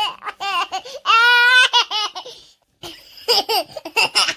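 A cartoon character's high, childlike voice laughing: a quick run of short laughs, a longer wavering laugh about a second in, then another run of laughs near the end.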